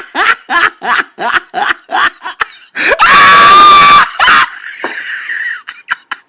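A person snickering in quick short bursts, then a loud, high scream held for about a second before fading out into a faint hiss.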